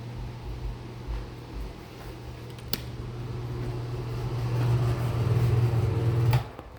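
Electric fan motor humming steadily and growing louder, with a click midway; then a switch clicks and the hum cuts off suddenly as the fan is turned off.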